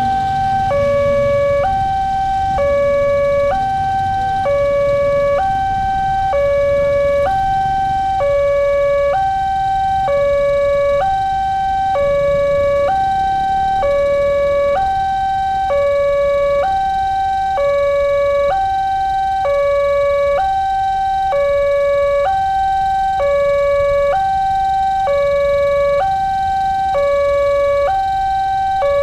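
Railway level-crossing alarm sounding its electronic two-tone warning, a higher and a lower note alternating about once a second in a steady repeating cycle. This is the signal that a train is approaching the crossing.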